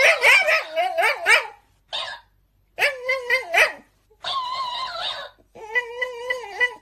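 Shiba Inu dog whining and yowling in a string of about five calls with short gaps between them, some wavering in pitch and some held steady.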